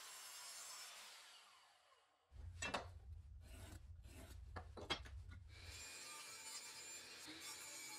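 Wood being worked with hand tools: a scraping sound that fades out over the first two seconds, then a low hum with several sharp knocks. Music comes in about six seconds in.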